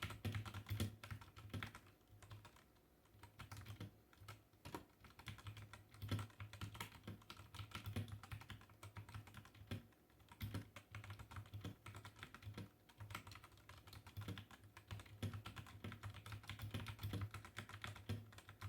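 Typing on a Redragon K630 mechanical keyboard with brown switches: a fast, irregular run of key clicks and clacks, easing off briefly twice.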